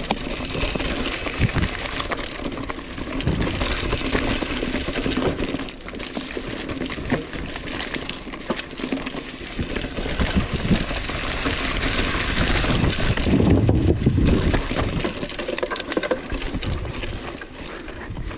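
Mountain bike ridden along a dirt trail: tyres running over loose ground with the bike rattling and knocking, over a heavy low rumble of wind on the microphone, loudest a little past the middle.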